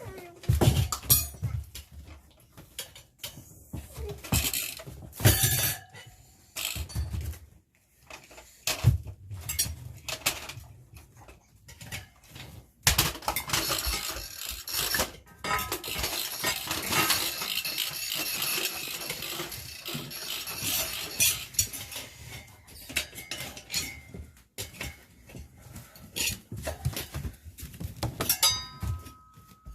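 Metal tyre tools clinking, knocking and scraping against a motorcycle wheel rim during a manual tyre change. Sharp knocks come at intervals, with a denser run of scraping and clinking in the middle.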